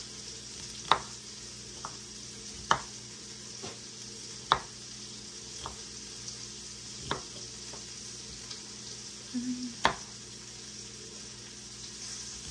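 Kitchen knife chopping broccoli on a wooden cutting board, a sharp knock every couple of seconds, over the steady sizzle of onions, poblano pepper and broccoli sautéing in a pan.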